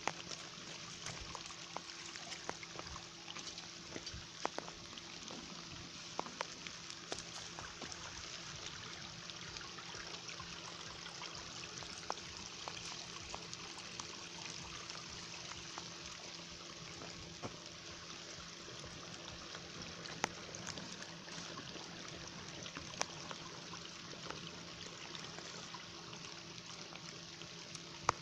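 Small stream trickling steadily, with a few scattered sharp clicks.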